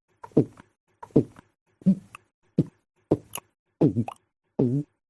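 A string of short synthetic non-verbal vocal sounds from a Loquendo text-to-speech voice, about seven in a row, each a brief voiced sound falling in pitch, with dead silence between them. The last one, near the end, wavers up and down in pitch.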